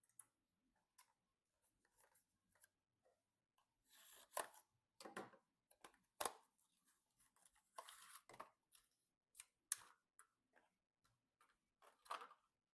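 Faint, irregular clicks, taps and brief rustles of hands handling computer parts and their packaging during a PC build.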